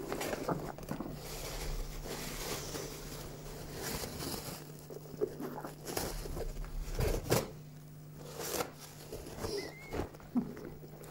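Rustling and crinkling of a blanket and paper towel being handled, with scattered soft knocks, over a low steady hum. A faint short high squeak comes a little before the end.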